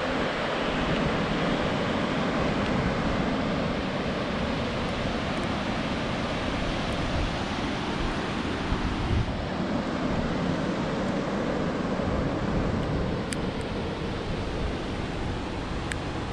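Steady rush of white-water rapids in the Kawarau River where the Roaring Meg comes in, with a gusty low rumble of wind on the microphone. A couple of faint ticks near the end.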